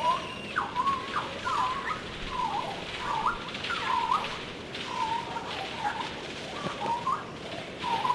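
Birds chirping: a quick, continuous series of short whistled notes that swoop up and down around one pitch.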